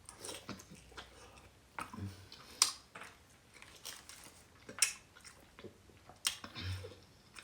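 A person eating close to the microphone: chewing with irregular wet mouth smacks and clicks, and a couple of short low hums of "mm".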